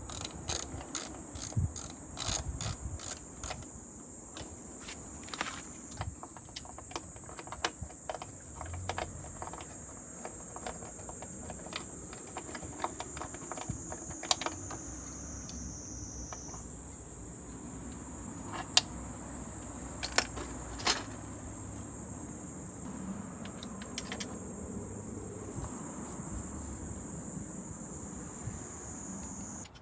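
Ratchet wrench clicking in quick, even runs during motorcycle engine work, then scattered sharp metallic clicks and taps. Under it all runs a steady high-pitched chirring drone like crickets.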